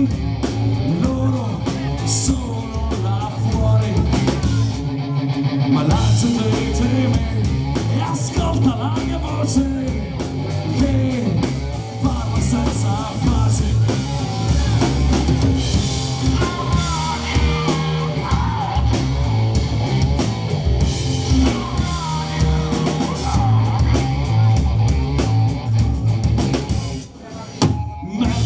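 Live rock band playing: electric guitars, bass and drum kit with a steady beat, a harmonica played into the vocal microphone at the start and a singer's voice. The band drops out briefly about a second before the end.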